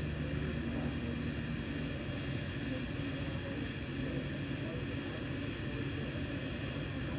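TIG (GTAW) welding arc on stainless steel pipe, burning continuously: a steady low hum with an even hiss and no breaks.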